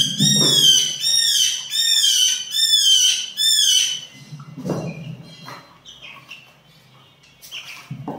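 Chicks peeping loudly over and over, two to three high arched peeps a second, stopping about four seconds in. A few dull knocks come now and then.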